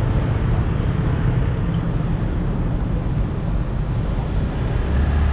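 Street traffic of motorbikes and cars passing, a steady rumble that grows louder near the end as a vehicle comes close.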